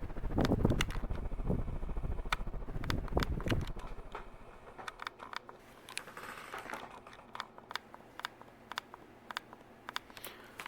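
Harbor Breeze Sienna ceiling fan running, its airflow buffeting the microphone with a low rumble for about the first four seconds. After that it is quieter, with irregular sharp clicks and a short hiss about six seconds in.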